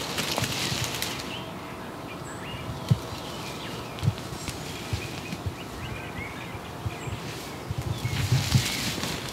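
Dry leaves and grass rustling and crunching under a person crawling on the ground, in a burst near the start and again near the end, with a few dull thumps in between.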